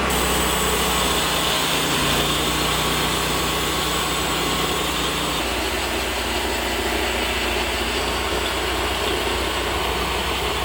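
TimberKing portable band sawmill running steadily as its engine-driven band blade cuts through a pine log. A low hum in the sound drops out about halfway through.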